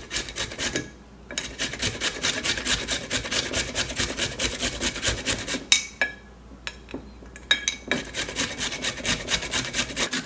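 A carrot grated fast against a flat metal hand grater, a quick run of scraping strokes at about five a second. There is a pause of about two seconds past the middle with a few light knocks, then the grating picks up again.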